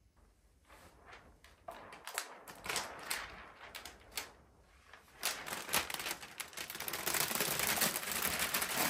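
Protective plastic film being peeled off the glossy screen of an LG G4 OLED TV. It crinkles and crackles, starting as scattered snaps and building to a steady dense crackle from about five seconds in.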